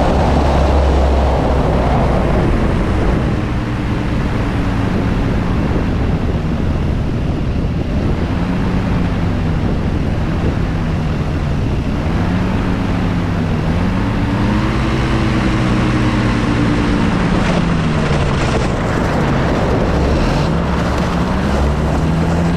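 Kolb Firefly ultralight's engine and propeller running, heard with heavy wind rush over the plane. The engine pitch rises and falls several times.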